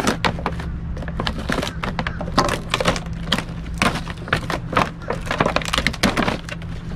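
Clear vinyl zippered storage bag crinkling and crackling in quick, irregular clicks as it is handled and unzipped, with the bungee cords inside shifting. A steady low hum runs underneath.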